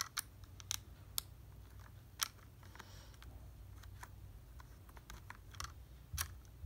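Sporadic light clicks and taps of a small screw and hard plastic being handled as the screw is fitted by hand through the C-flap into the batting helmet shell, over a faint low hum.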